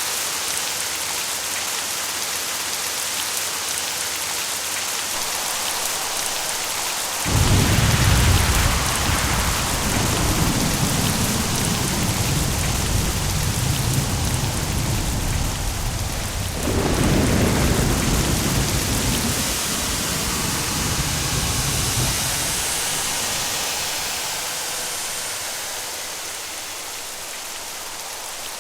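Steady heavy rain, with a peal of thunder cracking in about seven seconds in and rolling on, surging again partway through before rumbling away; the rain continues, easing slightly near the end.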